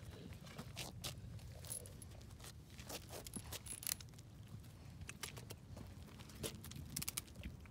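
Scattered light clicks and jingles of a large dog stepping about on a leash on bare concrete.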